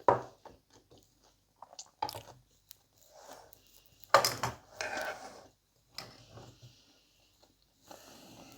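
A person chewing steak with irregular wet chews and mouth smacks, the loudest about four seconds in.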